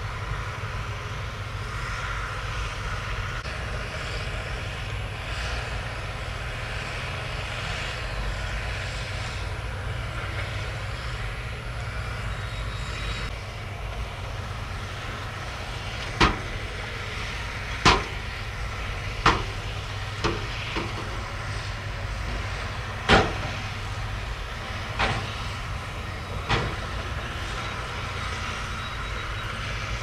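Heavy dump truck's diesel engine running steadily while its tipper bed is raised to unload soil and rock. In the second half come about eight sharp, separate knocks as the load shifts and slides out.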